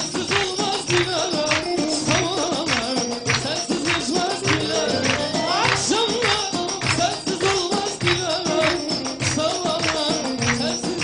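Upbeat dance music with a steady percussive beat and a melody running over it.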